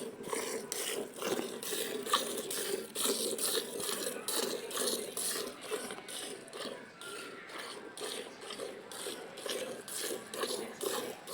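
A cow being milked by hand: jets of milk squirt into a pail in a quick, steady rhythm of about two to three strokes a second.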